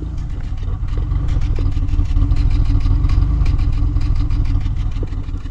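2004 Chevrolet Impala's 3.4-litre V6 idling with a miss, firing on five cylinders instead of six; the misfire is traced to a failing coil pack for cylinders 1 and 4.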